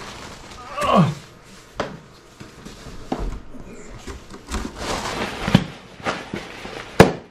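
Cardboard being handled: an inner box slid and lifted out of a large corrugated shipping box, with scraping, rustling and a few knocks of cardboard against cardboard, and one sharp knock near the end that is the loudest sound. A short vocal sound, falling in pitch, about a second in.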